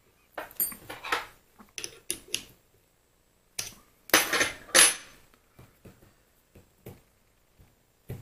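Metal parts of a mini lathe's apron clinking and scraping as they are handled and worked, in several short clusters, the loudest about four to five seconds in.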